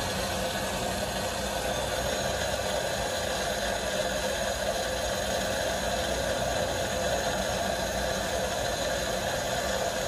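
Steady rush and hum of water flowing through a fire sprinkler pipe from an opened drain valve. This is the sustained flow that a vane-type waterflow switch, set to a 10-second delay, waits out before tripping the alarm.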